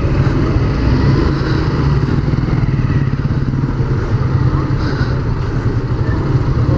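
Motorcycle engine running steadily at low speed in slow traffic, heard from the rider's seat as a continuous low rumble.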